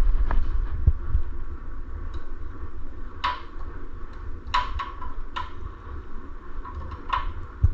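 Light metallic clinks, four or five spaced about a second apart, from an Allen key working the set screws of a centrifugal clutch. A low steady hum runs underneath.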